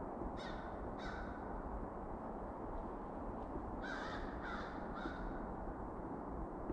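Crows cawing: two single caws near the start, then three caws in quick succession about four seconds in, over a steady low rumble.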